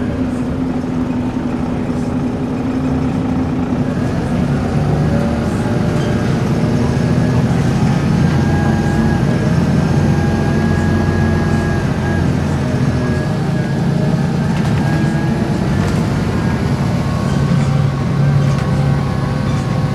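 Volvo B7RLE bus engine and ZF gearbox running under way, with a high whine holding for a few seconds near the middle. The bus makes a groaning noise as it accelerates and slows, which the uploader thinks may be an engine belt.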